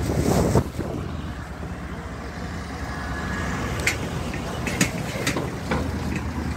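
Motor vehicle engine running steadily while on the move, louder for the first half second. Several sharp knocks sound over it around the middle of the stretch.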